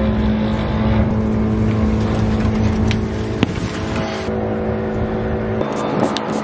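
A steady low hum with several held, unchanging tones runs throughout. Near the end come a few short hisses from a trigger spray bottle of leaf-shine spray being squeezed at plant leaves.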